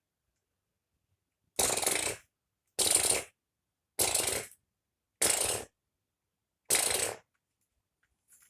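Five single gunshot sound effects, each a short sharp crack dying away within about half a second, spaced a little over a second apart, over dead silence. They stand for a toy Lego M16A3 rifle firing one aimed shot per target.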